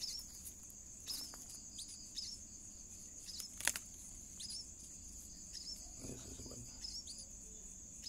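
Night-time crickets trilling in a steady high ring, with short high chirps repeating every half second or so. A single sharp click near the middle is the loudest sound.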